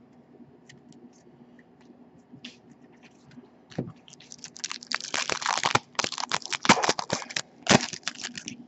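Foil wrapper of a hockey card pack crinkling and crackling as it is pulled open by hand, for about four seconds in the second half, after a few light knocks.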